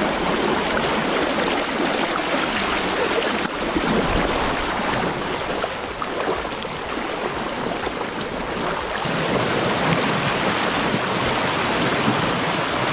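Fast river current rushing and splashing white around a wading angler's legs, heard close to the water: a steady, loud wash.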